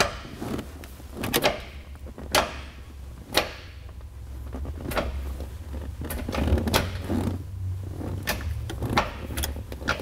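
Steeda Tri-Ax short-throw shifter worked by hand through every gear: a string of irregular clicks and clunks, more frequent in the second half, as the shifter is checked for contact against its adjustable shifter stops.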